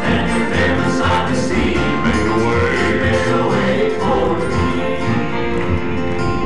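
Southern gospel male quartet singing in close harmony over piano, guitar and upright bass, with a very deep bass voice beneath the chords. Near the end the bass singer drops into a chest-fry low note, an F1.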